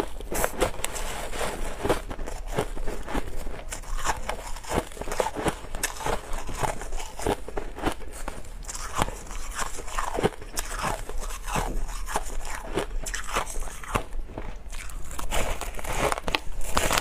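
Frosty crushed ice being bitten and chewed close to the mouth: a dense, continuous run of crisp crunches and crackles, a little louder near the end as a fresh clump is bitten into.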